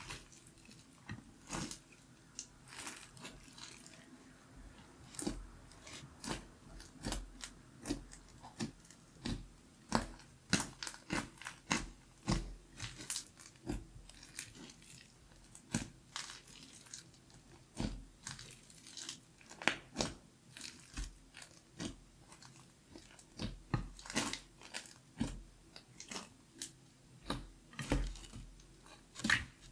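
Glitter slime being squeezed and poked by hand, giving a string of sharp, sticky clicks and pops at an irregular pace, a few a second.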